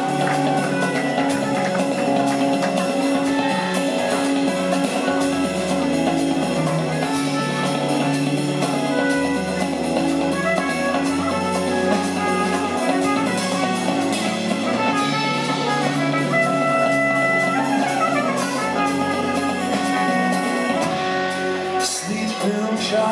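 Live band playing an instrumental passage: a trumpet carries the melody over electric bass, drum kit and electric guitar, with quick falling runs about two-thirds of the way through.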